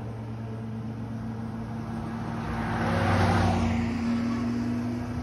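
Motor vehicle engines running steadily, with a car passing close by, loudest about three seconds in.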